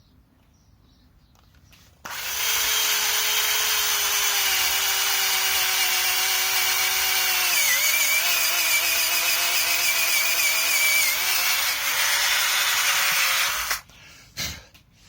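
Cordless drill boring a hole through wood. It starts about two seconds in and runs steadily for about eleven seconds. The motor's pitch drops partway through and dips briefly again near the end, then it stops suddenly. The user feels the drill's battery is running low.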